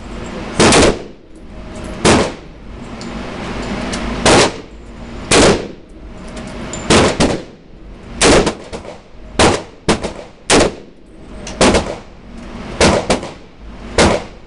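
DPMS Oracle Panther AR-15-pattern rifle in 5.56x45/.223 fired as single semi-automatic shots, about a dozen sharp reports at an uneven pace of roughly one a second, a few in quick pairs. Each shot rings on in the echo of an indoor concrete range.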